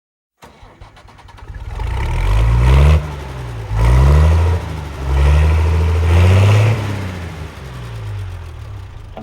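Heavy farm vehicle's engine accelerating: its pitch climbs, drops sharply about three seconds in and climbs again, then winds down over the last couple of seconds.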